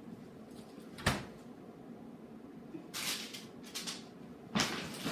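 Groceries being handled in a kitchen: a single sharp knock about a second in, then bursts of rustling.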